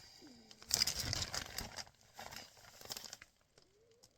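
Packaging crinkling and rustling as it is handled, strongest about a second in and again around the middle, with a faint short gliding squeak near the start and another near the end.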